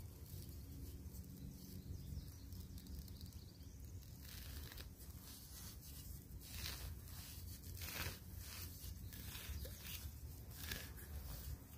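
Digging knife being driven and worked into grassy sod: several short scrapes and tears of soil and roots, over a low steady rumble.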